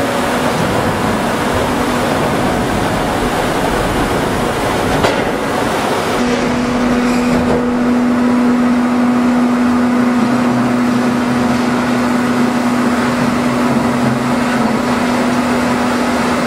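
Steady machine noise of a water-mist dust-suppression cannon's fan blowing alongside a demolition excavator running. A steady low hum joins about six seconds in and holds.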